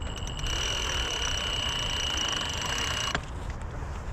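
Cordless drill driving a GRCS rope winch, its motor running with a steady high whine for about three seconds before stopping abruptly.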